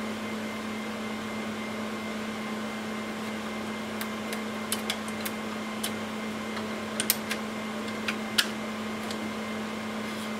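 Scattered small clicks and taps as a module with blue plastic latches is worked loose and pulled out of an IBM Power 595 server, over a steady low hum with a faint high tone.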